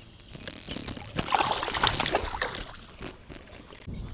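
Shallow water splashing and sloshing for about a second and a half, starting about a second in, as a bass is released by hand and kicks away from the bank.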